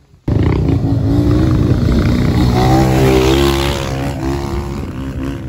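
Off-road motorcycle (dirt bike) engine revving as it climbs a dirt track. The pitch rises around the middle, then eases off and grows fainter as the bike moves away.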